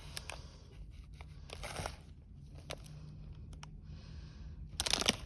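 Plastic candy bag being handled, with soft scattered crinkles and rustles, then loud continuous crinkling near the end as the bag is worked open.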